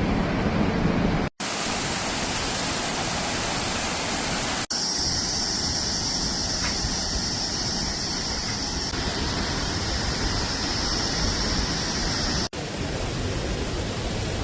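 Waterfalls at Iguazú Falls: a steady, loud rush of falling water, heard across several spliced clips with brief drop-outs at the cuts. In the middle clip a steady high-pitched drone sits on top of the water noise.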